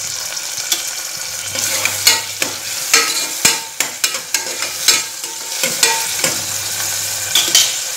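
Chopped tomatoes and shallots sizzling in hot sesame oil in a small metal pressure cooker. A utensil stirs them, scraping and knocking against the pot again and again through most of the stretch.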